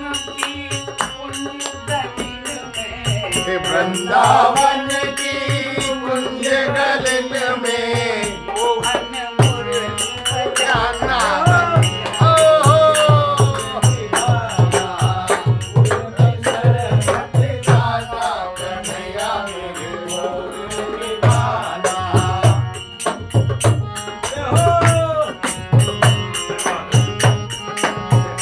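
A man singing a Hindi devotional bhajan, with a steady beat of hand percussion: low drum strokes and a regular jingling rattle.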